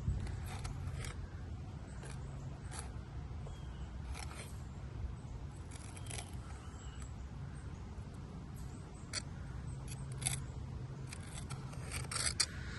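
Scattered light clicks and scrapes of hand work on a fresh caulk joint, over a steady low hum.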